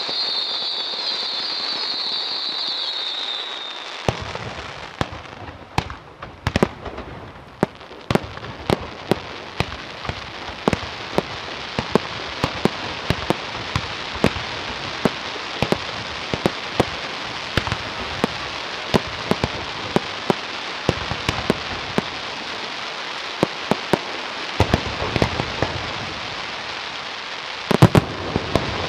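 Aerial fireworks going off: a high whistle for the first few seconds, then a long run of irregular sharp pops and bangs over a steady crackling hiss as glittering shells burst, with a cluster of louder bangs near the end.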